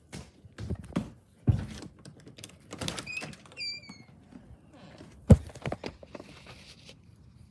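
Footsteps and a door being handled: a series of knocks and thumps, with a heavy thump about a second and a half in and the loudest about five seconds in. A few short, high, falling squeaks sound about three and a half seconds in.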